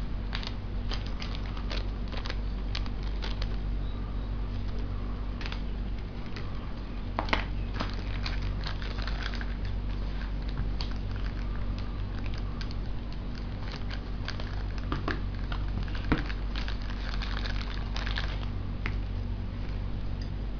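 Small clear plastic parts bags crinkling and small plastic toy pieces clicking as they are handled, in many short irregular crackles over a steady low hum.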